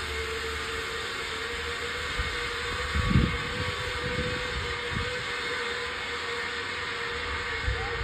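Zipline trolley running along the steel cable: a steady whirring hiss with a constant hum, and a few low thumps about three seconds in and near the end.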